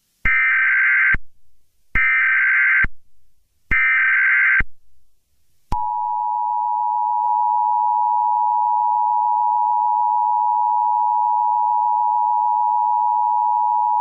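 Emergency Alert System alert tones. First come three SAME header data bursts, each a buzzy screech about a second long with about a second between them. Then, about six seconds in, the steady two-tone EAS attention signal begins.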